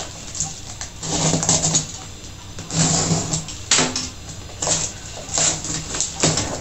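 A marker pen scribbling over the address on a parcel label in a series of short, scratchy strokes, with paper rustling as the label is handled.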